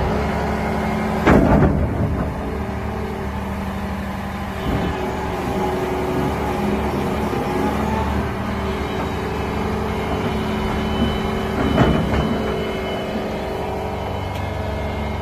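Volvo EC300EL excavator's diesel engine running steadily while its hydraulics work the boom and bucket. Two loud knocks stand out, about a second in and again near twelve seconds.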